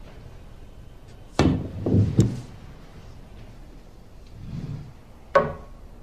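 Snooker cue and balls during play: three sharp clacks of the cue tip and balls striking, with a low rumble of balls rolling on the cloth between them.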